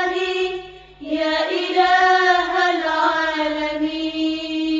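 Voices singing the closing lines of an Arabic nasheed in long held notes. One note fades out about a second in, then a new note is held almost to the end.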